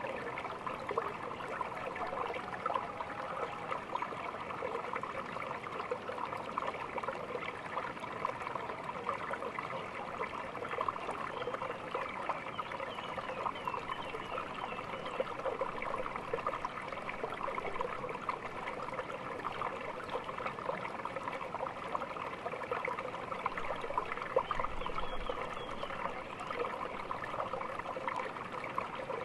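Small stream babbling and trickling steadily over stones.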